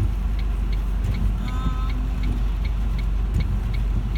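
Steady low rumble of a car's engine and road noise heard inside the cabin, with a turn signal ticking evenly at about two to three clicks a second.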